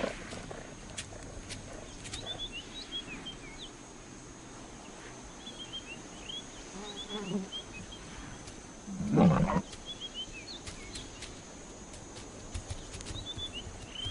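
A big cat growls low about seven seconds in, then gives one loud, short snarl about nine seconds in.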